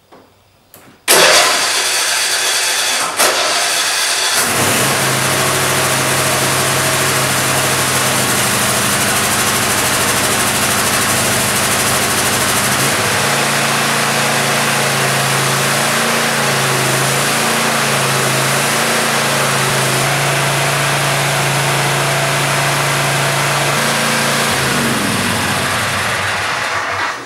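Cub Cadet RZT L 54 zero-turn mower's Kohler engine cranked by its electric starter for about three seconds, catching and then running steadily; its pitch falls near the end.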